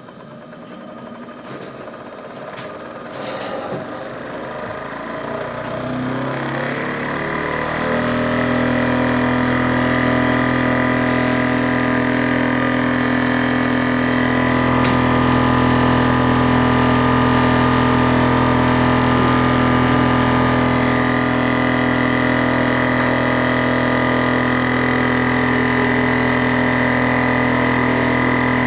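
Remi laboratory vortex mixer's motor speeding up, its hum rising in pitch and growing louder over the first eight seconds or so, then running at a steady speed with an even, steady hum.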